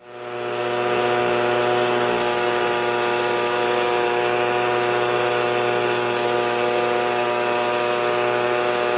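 Echo PB-200 leaf blower's small two-stroke engine and fan running steadily after being pull-started with a newly replaced starter rope, building up over about the first second.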